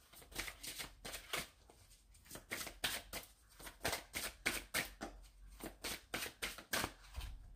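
A deck of cartomancy cards being shuffled by hand: an irregular run of light, quick card clicks that stops near the end.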